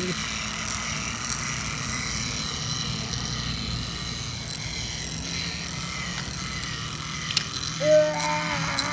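Small electric motors and plastic gearboxes of battery-powered toy trains whirring steadily as they run along the track, with a few light clicks.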